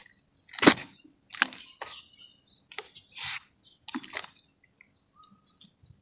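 Dry red dirt crumbled by hand in a plastic basin: a series of short gritty bursts as clumps are squeezed apart and fall back onto the pile. The loudest comes about a second in, and they thin out to faint trickles near the end.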